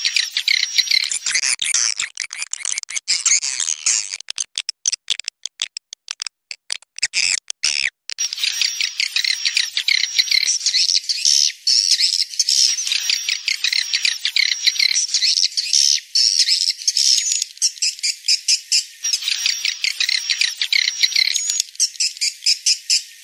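Swiftlet lure-call recording: a dense chorus of high twittering chirps and rapid clicks, blended from the sounds of swiftlets roosting, with their wingbeats. It is the call played at swiftlet houses to draw the birds in. The sound drops out briefly again and again during the first eight seconds, and runs on unbroken after that.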